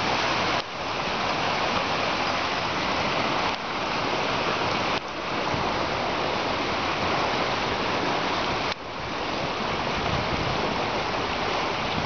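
Steady rush of a fast creek pouring out through road-bridge culverts and over rocks, a continuous hiss of whitewater.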